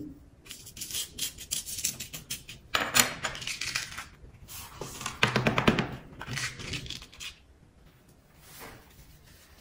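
Loose coloured sand sliding and spilling off a sand-painting board as the board is tipped to shed the excess. The gritty, crackling hiss comes in two spells, the second the louder.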